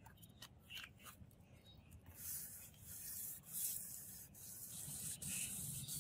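Katana blade being sharpened by hand: repeated abrasive rubbing strokes across the steel. It starts faint with a few light clicks, and the strokes grow louder about two seconds in.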